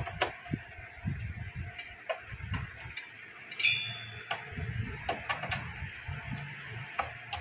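Screwdriver and screws being worked on a metal inverter chassis: scattered small clicks and knocks, with a brief ringing metallic clink about three and a half seconds in.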